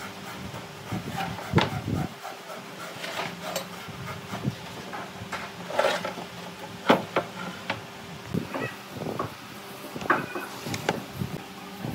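Pine boards and panels knocked and slid against each other and a wooden workbench as they are set down and moved around: irregular knocks and short scrapes, the sharpest about seven seconds in, over a steady low hum.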